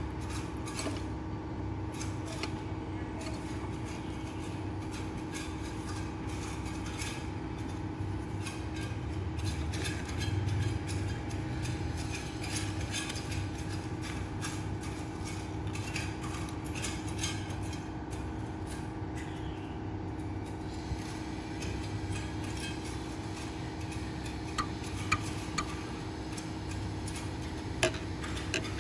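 Steady low mechanical hum with a couple of constant tones, and a few light sharp clicks near the end.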